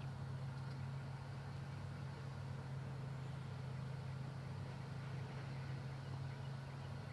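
A steady low hum from a running machine, even and unchanging throughout.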